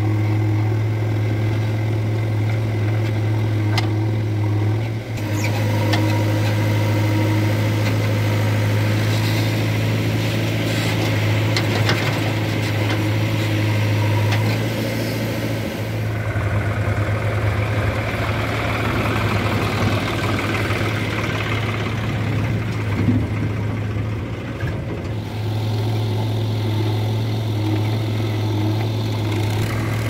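Diesel farm tractor engines idling close by, a steady low drone, with a few short knocks over it.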